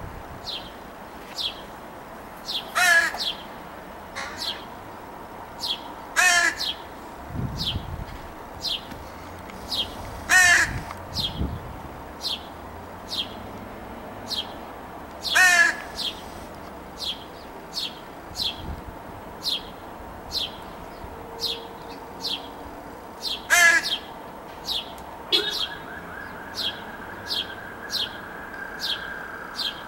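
American crows calling: about six loud, wavering, nasal calls spaced a few seconds apart, typical of a young crow begging. Under them runs a steady series of short, high ticks, about one and a half a second.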